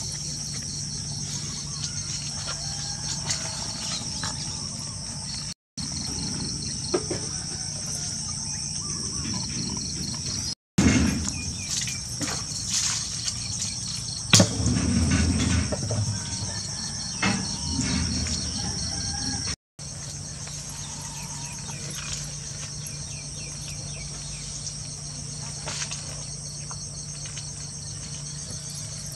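A chorus of crickets chirping steadily, a high, finely pulsing trill. In the middle stretch there are louder rustling and knocking noises, with one sharp knock about fourteen seconds in, and the sound drops out for an instant three times.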